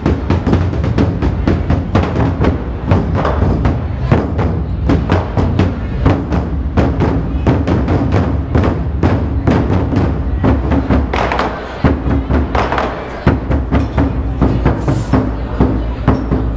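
An ensemble of large Chinese barrel drums (dagu) beaten together with sticks in a fast, driving rhythm of about four or five strokes a second. The playing drops briefly about twelve seconds in.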